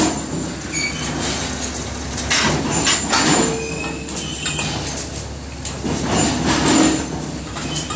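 Rotary pipe-bending machine bending a steel tube around its die: metal-on-metal scraping and clanking over a steady low hum, with a couple of brief squeals a little past the middle.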